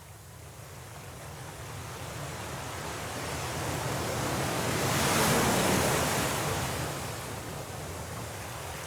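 Stormy sea waves: a single wave builds up, breaks about five seconds in and falls back into a steady rushing wash.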